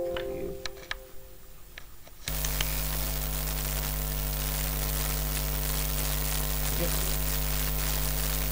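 A few faint clicks, then about two seconds in a steady low electrical buzz with hiss switches on suddenly and carries on: mains hum and static on the recording.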